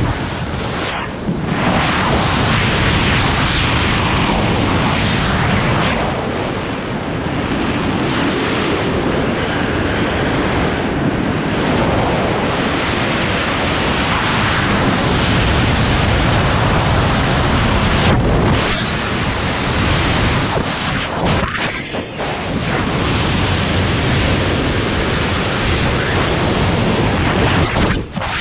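Freefall wind blasting over the microphone of a GoPro Hero 7 during a head-down wingsuit flight: loud, dense rushing noise that eases briefly a few times as the flyer carves.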